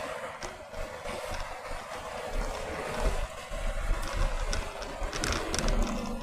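Wind rushing over the microphone, with low buffeting gusts from about two seconds in and a few sharp clicks near the end.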